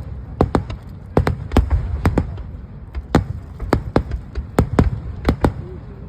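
Fireworks going off close by: sharp bangs and cracks in quick, irregular succession over a low rumble.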